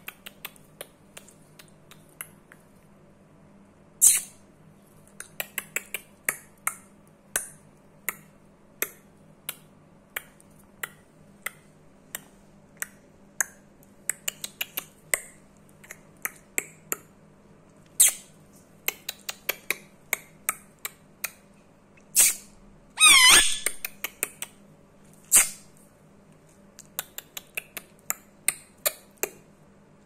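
Indian ringneck parakeet making sharp clicking sounds in irregular runs of several clicks, broken by a few brief shrill calls and one longer wavering screech about two-thirds of the way through.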